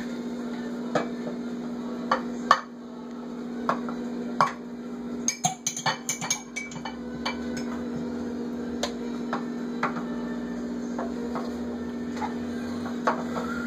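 A metal spoon clinking and knocking against cups and dishes in a kitchen sink, in scattered strikes with a quick cluster of them about five to six seconds in, over a steady low hum.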